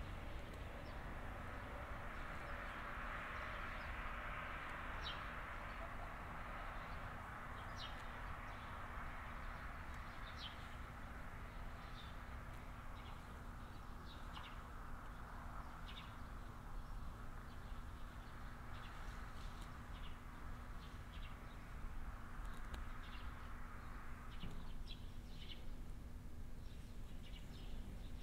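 Small birds chirping in short calls here and there, over a steady low rumble and a hiss that fades out about 24 seconds in.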